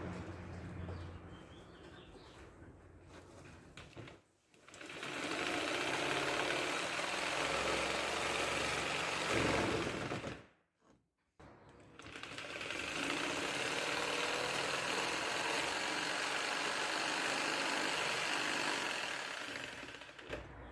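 Angle grinder with a cutting disc, run at turned-down speed, cutting into a car's front bumper. It goes in two long sustained cuts with a short break between them, after a quieter stretch at the start.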